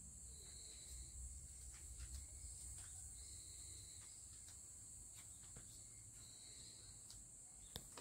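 Near silence: a faint steady high hiss, with a few brief high chirps and scattered light clicks.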